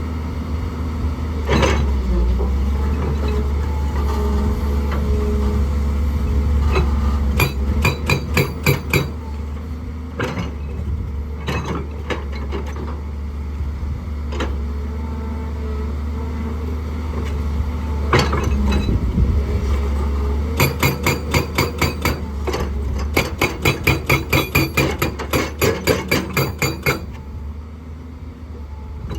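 Hydraulic rock breaker on an excavator hammering rock, with the excavator's diesel engine running steadily underneath. The breaker fires in rapid runs of several blows a second: a short burst about a third of the way in, and a longer run, with a brief pause, in the last third.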